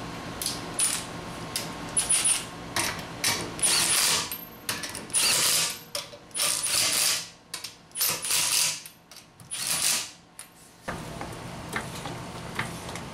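Milwaukee 3/8-inch cordless impact wrench running in a series of short bursts, spinning lug nuts onto a car wheel and snugging them. The bursts stop about ten seconds in, leaving a faint steady hum.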